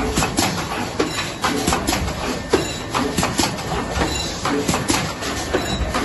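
A rigid box wrapping machine running, its pneumatic mechanisms making a steady clatter of sharp clicks and knocks several times a second as it wraps and tucks the edges of paper-covered boxes.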